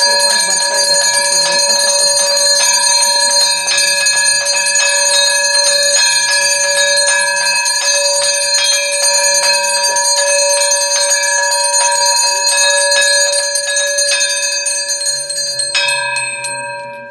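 Puja hand bell rung rapidly and continuously, its strikes blending into a steady ringing of several tones. The ringing stops about a second before the end and dies away briefly.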